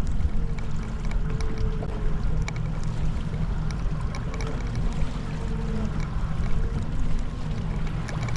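Boat motor running steadily at trolling speed, a constant low drone, with wind buffeting the microphone.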